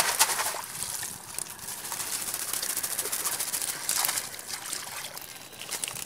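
Live eels and small fish squirming and flapping in a plastic crate: a dense wet crackle of many small slaps and splashes. It surges louder at the start and again about four seconds in.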